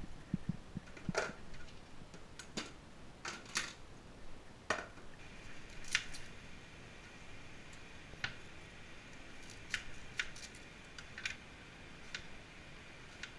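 Kitchen knife slicing a red onion on a plastic cutting board: scattered sharp taps of the blade meeting the board. In the first few seconds, knocks and clatter of items being handled and set down on the countertop.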